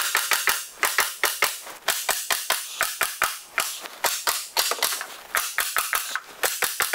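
Milwaukee M18 FUEL cordless 15-gauge finish nailer fired in bump mode, driving 2.5-inch nails into wood in a fast run of sharp shots, about five a second, in quick groups with short gaps.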